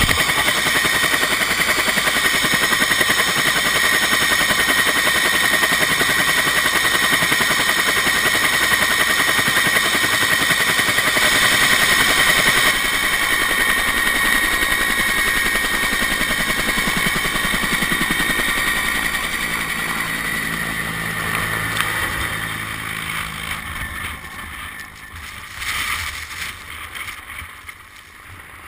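A helicopter running at close range: a steady turbine whine over rapid rotor chop and rushing wind. In the last third it lifts off and flies away, and the sound fades.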